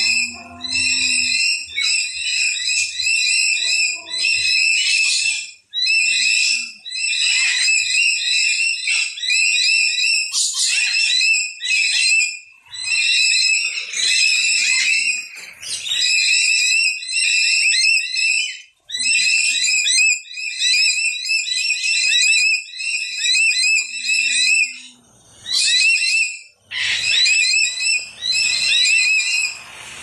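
Birds calling in a near-continuous chorus of shrill, high-pitched chattering calls, broken only by brief pauses.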